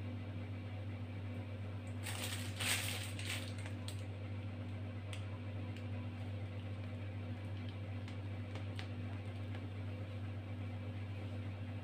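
Plastic piping bag of whipped cream squeezed through a Russian piping tip: a brief crinkling, squishing rustle about two seconds in, then a few faint soft clicks, over a steady low electrical hum.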